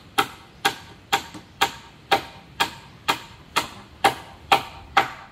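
A hammer driving a nail into timber with steady, evenly spaced blows, about two a second, each with a short ring; the blows stop near the end.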